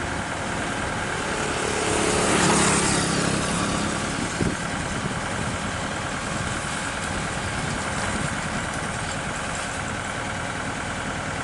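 Excavator engine running steadily, swelling briefly about two seconds in, with a single sharp knock a little later.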